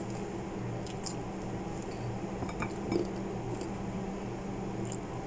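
Small clinks and taps of fingers and a knife against a ceramic bowl as fruit is picked through, over a steady low hum in the room.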